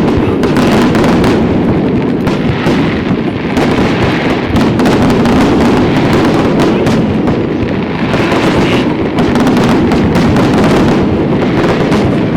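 Fireworks going off in a dense, continuous barrage of rapid overlapping bangs, loud throughout with no pause.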